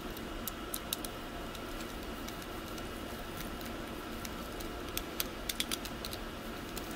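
Screwdriver tightening the screws of a plastic 20-amp, 240-volt plug housing: a few light clicks about half a second in and a quick cluster of clicks about five seconds in, over a steady background hum.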